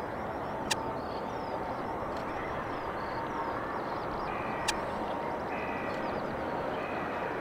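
Distant jet engine noise of a four-engine Boeing 747 at takeoff power on its takeoff roll, a steady rushing rumble that builds slightly near the end. Birds call over it, and there are two sharp clicks, one about a second in and one near two-thirds of the way through.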